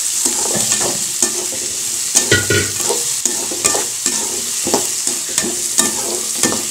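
Cubed bottle gourd and tomato sizzling in hot oil in a kadai while being sautéd, with a metal spatula scraping and knocking against the pan about twice a second.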